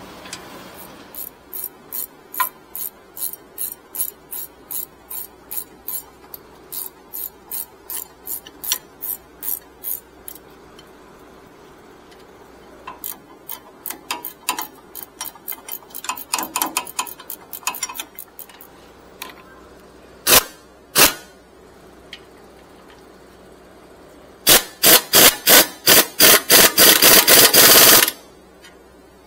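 Ratchet wrench clicking in even strokes, about two to three clicks a second, then more irregularly, with two sharp metal knocks in between. Near the end comes a faster, louder run of clicks.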